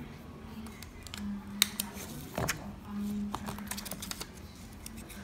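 Hands handling a cardboard iPhone box and lifting the phone out of its tray: scattered light clicks and taps, with one sharper click about a second and a half in and a quick run of clicks later on.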